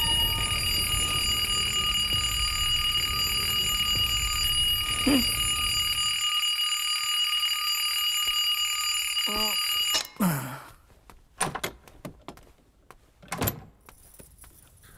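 Alarm clock ringing with a steady high tone, cut off suddenly about ten seconds in; a few faint knocks follow.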